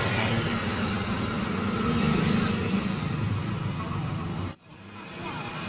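Road vehicle engine running close by, swelling about two seconds in over street noise. The sound drops away abruptly near the end.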